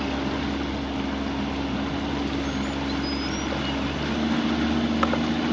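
A 60-horsepower outboard motor running steadily, pushing the boat along at speed, with water rushing past the hull. The engine gets a little louder about four seconds in.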